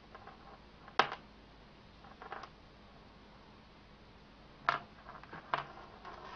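Handling noise: a few sharp clicks and taps, about a second in, near the middle and twice near the end, with fainter small ticks between.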